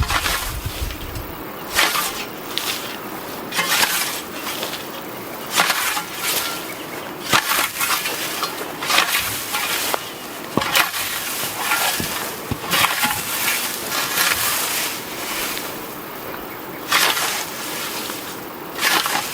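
European scythe blade swishing through tall grass and weeds in repeated mowing strokes, about one every one and a half to two seconds.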